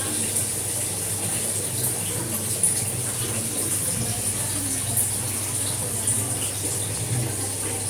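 Steady rushing hiss over a low hum, with a few faint ticks.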